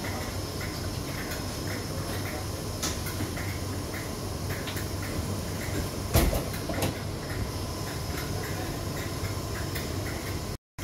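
Steady low hum of a Merseyrail electric train standing at the platform with its doors open. A single loud thump comes about six seconds in.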